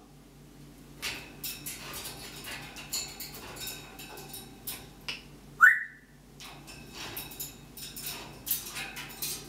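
Pet parrot imitating fireworks: a scattered run of sharp clicks and pops, with one loud, short rising whistle about six seconds in.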